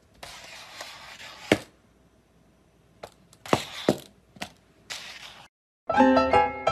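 Faint hiss with several sharp knocks and thuds, the loudest about one and a half seconds in. Near the end, background music with short struck notes starts.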